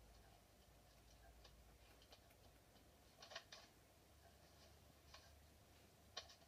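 Near silence: faint hiss with a few soft, short clicks, a pair about three seconds in and another pair near the end.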